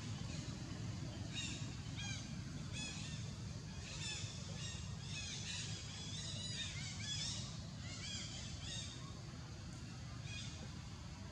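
Short, high-pitched animal calls repeated in irregular runs, thickest in the middle, over a steady low rumble.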